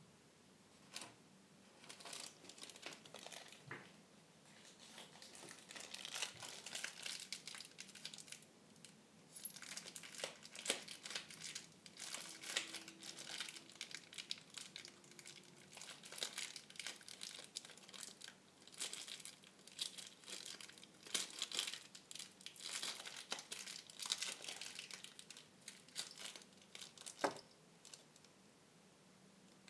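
Model-airliner packaging crinkling and rustling in irregular bouts as it is handled and unwrapped, with a few sharp clicks; the loudest click comes about nine seconds in.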